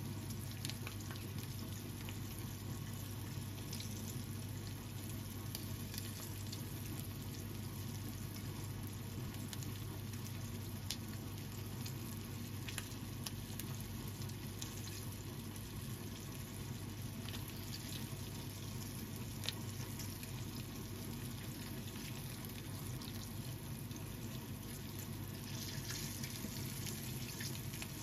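Coated chicken drumettes (karaage) shallow-frying in oil in a frying pan: a steady sizzle with scattered crackles and pops, swelling briefly near the end.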